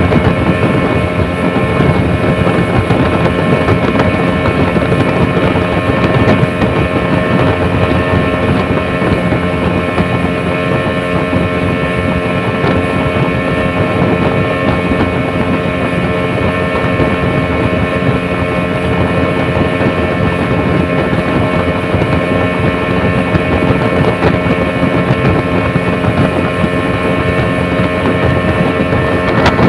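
An engine running at a steady, unchanging speed with a constant rushing noise over it.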